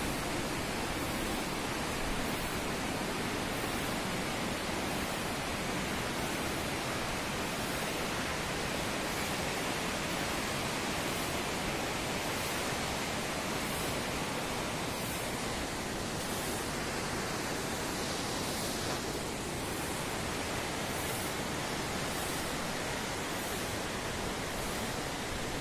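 A fast-flowing river rushing steadily, heard as an even, unbroken hiss.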